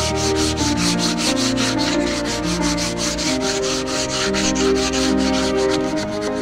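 Hand sanding a wooden furniture panel with a sanding pad: quick, even back-and-forth scratchy strokes, about five a second, over background music.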